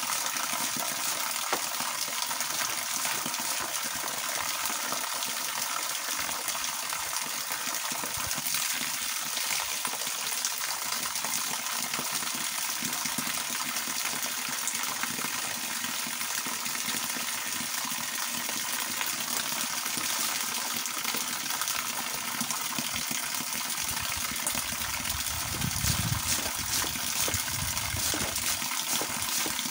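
Water from a garden hose pouring down in a steady stream and splashing onto a person bathing beneath it. A low rumble joins in near the end.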